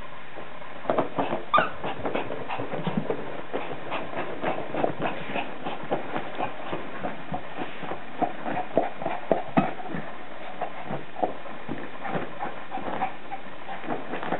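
Yorkshire terrier playing with a cloth sheet: irregular scuffing and rustling of the fabric mixed with brief dog vocal sounds, starting about a second in, over a steady hiss.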